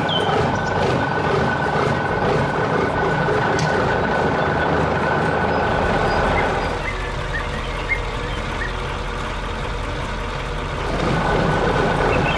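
A heavy construction machine running, with a steady high tone over the engine noise that drops out for a few seconds past the middle and then returns, while a deeper hum sets in. Short chirps, like birdsong, come just at the start and again near the end.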